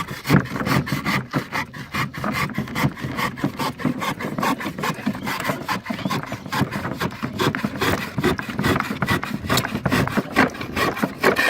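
Spear & Jackson Predator 8 PPI hand saw cutting through timber in a steady run of rasping back-and-forth strokes. The blade has only had about a week's use and is going dull.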